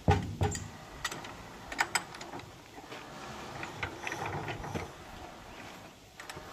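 Sharp metal clicks and clanks of a hand starting crank being fitted to and worked on the single-cylinder diesel engine of a công nông farm tractor, loudest near the start; the engine does not catch.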